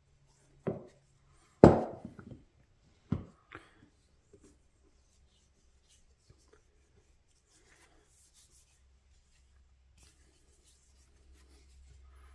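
Four sharp wooden knocks in the first four seconds, the second and loudest about two seconds in, as a wooden mallet is handled and set down on a wooden workbench. After them comes only the faint rubbing of a hand wiping finish onto the mallet head.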